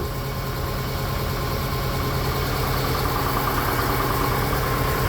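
Steady machine hum with a faint high whine, unchanging throughout.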